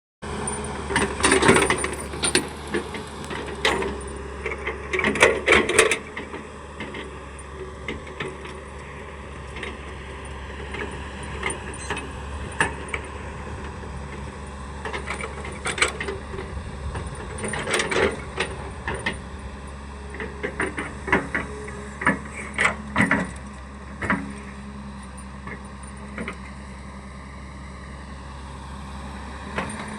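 Hyundai excavator's diesel engine running steadily under load, with irregular metallic clanks and knocks from the working machine. The knocks come in clusters: several in the first few seconds and more through the second half.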